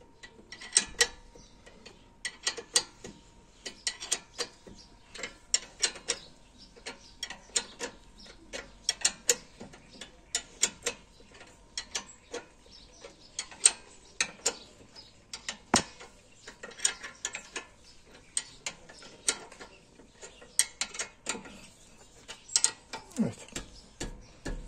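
17 mm wrench on a brake caliper's mounting bolts, giving irregular sharp metallic clicks, a few a second, as the bolts are tightened carefully in short half-turn strokes.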